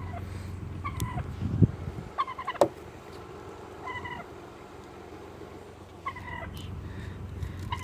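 Wild turkeys beside the car giving short calls, a note every second or two, with two loud sharp knocks between one and three seconds in. A low hum dies away about two seconds in.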